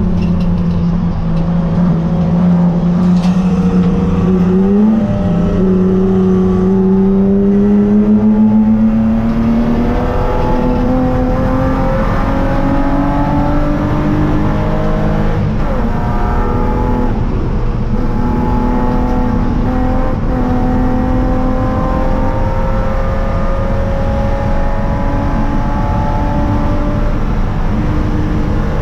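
Spec3 BMW E36 race car's straight-six engine heard from inside the stripped cabin, pulling hard at racing speed. Its note holds steady for the first few seconds, then climbs in long rising pulls, broken several times where the pitch drops back at gear changes, over steady road and tyre noise.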